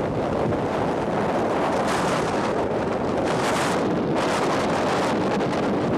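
Strong wind of up to 60 mph buffeting the microphone: a loud, constant rushing rumble, with gusts that bring surges of hiss about two, three and a half, and four and a half seconds in.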